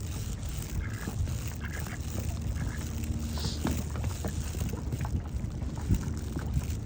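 Wind buffeting the microphone as a steady low rumble, with a few short, faint duck calls over it.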